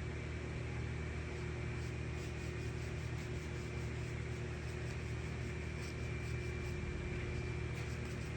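Steady mechanical hum with a thin, high whine over it, unchanging throughout.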